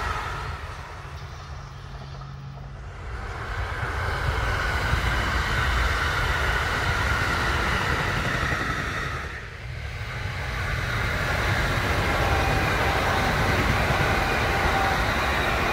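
Kintetsu electric trains passing on the line, with a steady rumble of wheels on rail. After a break about nine and a half seconds in, a red-and-white Kintetsu train passes close by and is louder.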